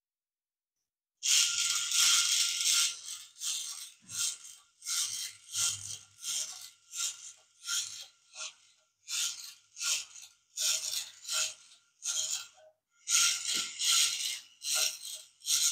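Small solar-powered plastic kit robot (Walker-Bot) walking on its little geared motor, starting about a second in: its plastic legs and gears clatter on a wooden tabletop about twice a second over a faint steady motor whine.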